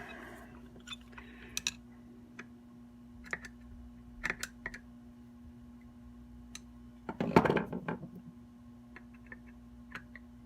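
Scattered small metal clicks and taps of a screwdriver working at the throttle-plate screws of a carburetor. A louder clatter of tools comes about seven seconds in, over a steady low hum.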